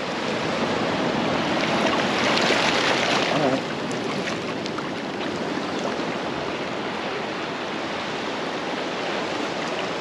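Shallow sea water washing over a flat rock shelf at the shoreline: a steady rush of surf that swells a little about two seconds in, then eases at about three and a half seconds.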